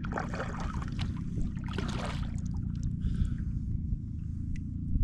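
Water sloshing and splashing around a kayak, in a few short bursts with small knocks, over a steady low rumble.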